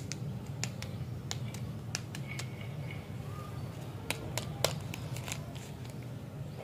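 Crinkling of a lollipop's wrapper as fingers handle it and start to peel it open: irregular sharp crackles, thickest about four seconds in, over a steady low hum.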